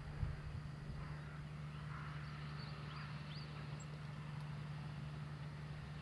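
JCB Fastrac tractor's diesel engine running at an even pace while towing a twin-axle slurry tanker, a steady distant drone.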